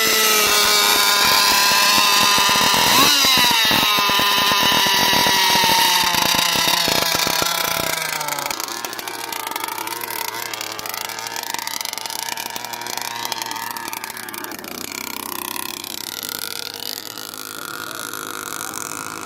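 30cc Zenoah two-stroke petrol engine of an RC boat, running just after starting, with a quick rev about three seconds in. About eight seconds in its pitch falls and it runs on lower and a little quieter.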